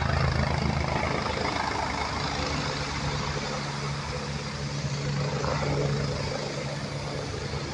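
Helicopter descending and touching down, its rotor and turbine engines running with a steady low drone that eases off slightly near the end.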